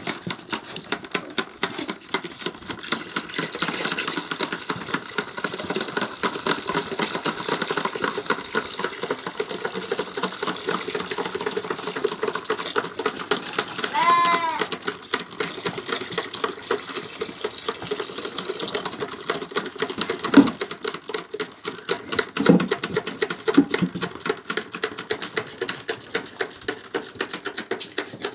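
Several lambs sucking milk from the rubber teats of a bucket feeder: a fast, continuous run of wet sucking and smacking clicks. One lamb bleats briefly about halfway through, and a few louder knocks come later on.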